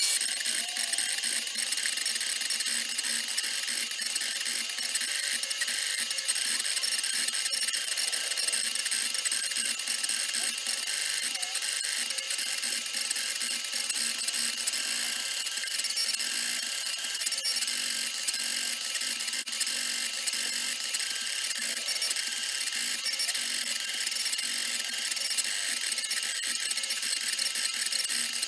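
Small CNC router spindle engraving a clear acrylic sheet, giving a steady high-pitched whine and hiss with the bit chattering through the plastic.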